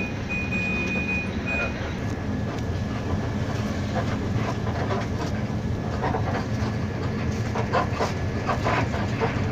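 Inside a moving bus: the engine drones steadily while the cabin rattles and clicks, more busily in the second half. An intermittent high beep sounds in the first couple of seconds.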